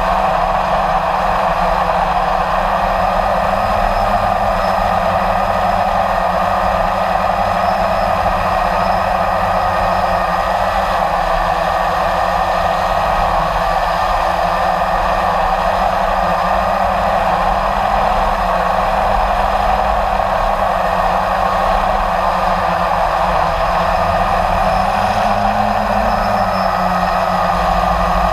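Blade 350 QX3 quadcopter's electric motors and propellers whirring steadily, heard from the camera on board, with the pitch shifting slightly about 25 seconds in.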